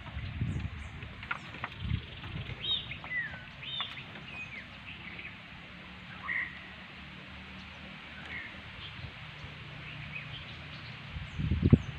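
Birds chirping and calling in short high notes, over low knocks and thumps as a wet cast net is hauled in against a wooden dugout canoe; the loudest thumps come near the end.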